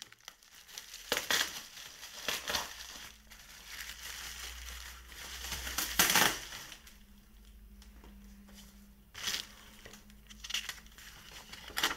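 Plastic bubble wrap crinkling and rustling as hands pull it off a parcel, in irregular bursts with a few sharper crackles, the loudest about halfway through.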